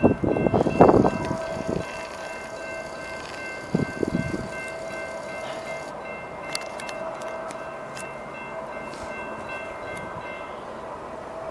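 Union Pacific freight train with an SD70 locomotive approaching, a steady high multi-tone sound held for about ten seconds that stops near the end. Gusts of wind hit the microphone in the first two seconds and again about four seconds in.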